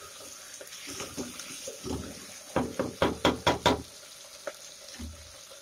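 Sliced onions and tomato sizzling in oil in a stainless steel pressure cooker while being stirred with a wooden spatula. About halfway through, the spatula knocks against the steel pot in a quick run of about six ringing strikes.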